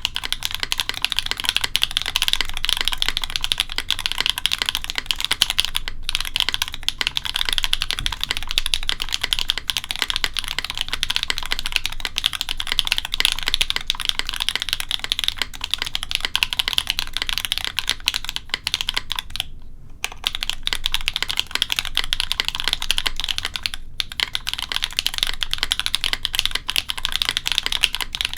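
Fast, continuous typing on a J-02 mechanical keyboard with Cherry-topped Gateron Deepping switches on a carbon fiber plate: a dense stream of keystrokes, broken by short pauses three times.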